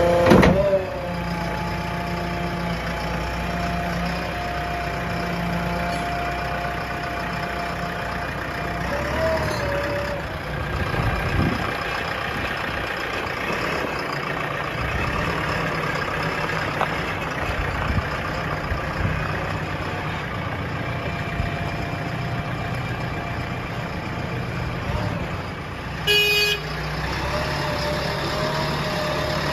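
Diesel engines of a backhoe loader and tractors running steadily, with a short horn toot about 26 seconds in.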